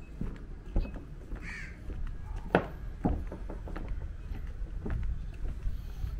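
A single harsh bird call about one and a half seconds in. Around it come a few sharp knocks, over a steady low rumble.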